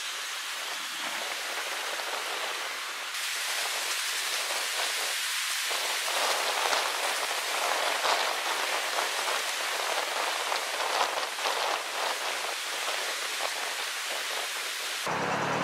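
Steady hiss with dense crackling, the crunch and clatter of broken concrete and rubble being worked by an excavator bucket. Near the end it cuts abruptly to the low, steady drone of the excavator's diesel engine.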